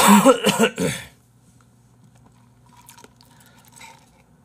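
A man's voice for about the first second, with no words made out, then quiet with faint sipping through a straw from a glass near the end.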